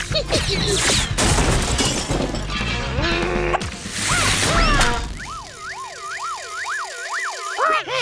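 Cartoon soundtrack: music with busy, noisy sound effects, then from about five seconds in a warbling siren-like tone that swoops up and down about twice a second until it cuts off just before the end.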